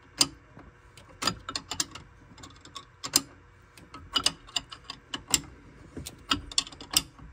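An 11/16 wrench clicking and clinking against metal as it tightens a freeze plug back into the top of the PCM marine engine's exhaust manifold: irregular sharp clicks, a few at a time.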